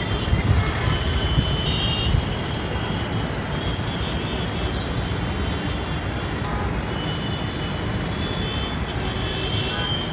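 Steady road traffic noise: a dense rumble of passing vehicles.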